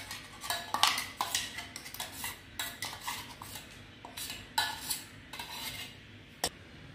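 Steel spoon scraping and clinking against stainless steel vessels while scraping thick chilli paste out into a bowl of flour: a string of irregular scrapes and clinks, with one sharper clink near the end.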